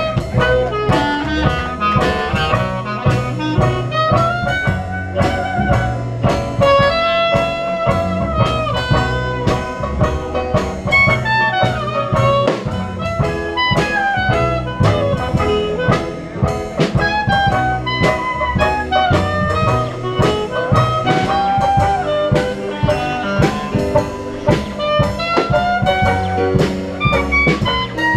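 Background music: an upbeat jazz tune with brass over a steady drum beat.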